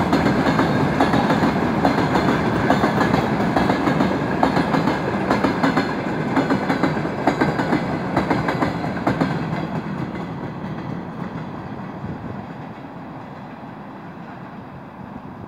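Freight train wagons (tank cars and a boxcar) rolling past close by, wheels clacking over the rail joints with a dense, rumbling rattle. From about two-thirds of the way in, the end of the train pulls away and the sound fades steadily.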